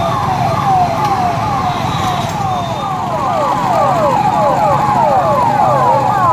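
Several police vehicle sirens sounding together, each a quick falling sweep repeated about twice a second. The sweeps overlap more densely from about halfway, and a steady held siren tone joins in the second half, with vehicle engines running underneath.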